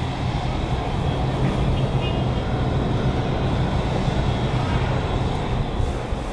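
Steady city background noise: a constant low rumble of distant traffic with a low, steady hum running through it.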